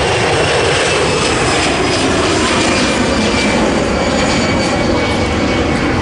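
easyJet Airbus A320-family airliner's jet engines at takeoff power as it climbs away after lift-off: a loud, steady jet roar with a faint high whine that drifts slightly lower in pitch.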